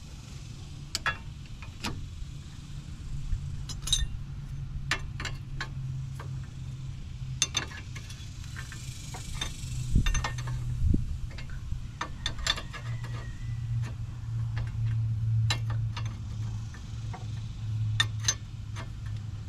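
Steel wrench and pliers clicking and clinking on a tie rod end's nut as it is worked off the stud, in irregular sharp ticks, single and in quick little runs, over a steady low hum.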